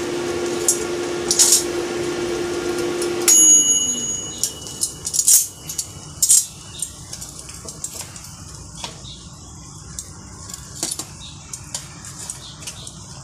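Air fryer fan running with a steady hum, then winding down with a falling pitch about three seconds in as a loud high beep sounds. After that, metal tongs clink and tap against the chicken and the fryer basket.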